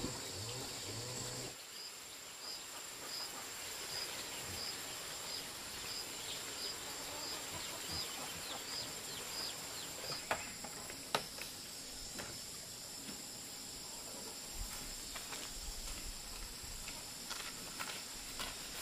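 Steady high-pitched insect chorus, crickets or cicadas trilling without a break. For the first half a repeated high chirp sounds about one and a half times a second, then stops. A few sharp clicks come around the middle and near the end.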